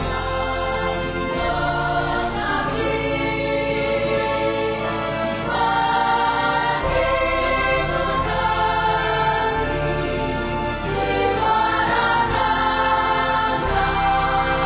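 Background music: slow, held chords with choir-like singing voices over a low bass, the chords changing every second or two.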